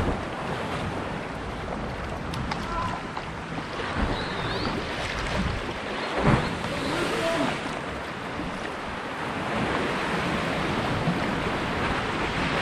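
Ocean waves and surf washing steadily, with wind buffeting the microphone.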